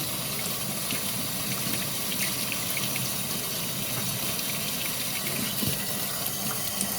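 Kitchen faucet running steadily, cold water splashing over an egg held under the stream to cool it.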